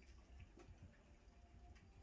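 Faint, irregular wet clicks of miniature schnauzer puppies lapping goat's milk from a stainless steel puppy saucer.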